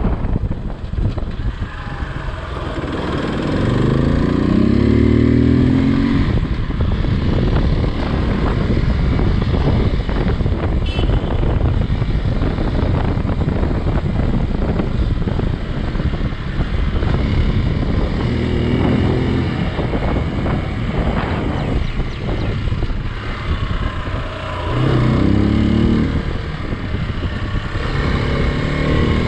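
Hero XPulse 200 motorcycle's single-cylinder engine running under way, revving up in rising sweeps three times: a few seconds in, about two-thirds through, and near the end.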